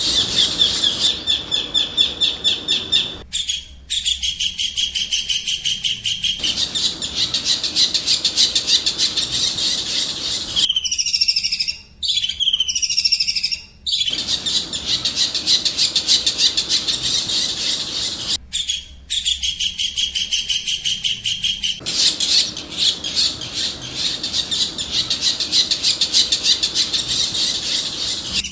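Songbird song used as masteran training audio: rapid, fast-repeating high chirps and trills without a break, with two downward-sliding whistled notes about eleven and thirteen seconds in.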